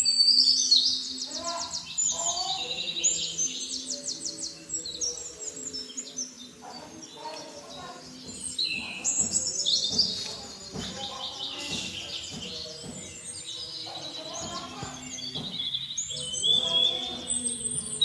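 Birds chirping and singing, many quick trills and chirps overlapping throughout, with faint steady low tones underneath.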